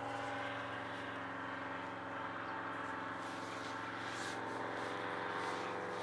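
Engine of a powered hang glider flying high overhead, a steady distant drone that holds one pitch throughout.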